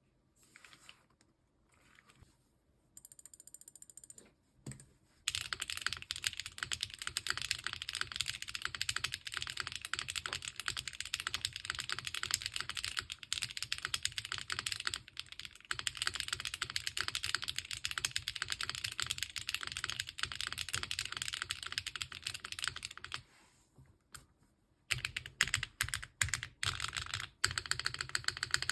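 Custom F2-60 60% mechanical keyboard being typed on. From about five seconds in there is fast, continuous clacking of the key switches, broken by a short pause midway. After a longer break near the end come a few slower, separate keystrokes.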